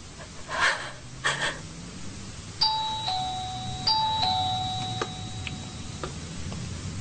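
Two-tone doorbell chime ringing ding-dong twice, about a second apart, starting some two and a half seconds in; each ring steps down from a higher to a lower note and rings on as it fades.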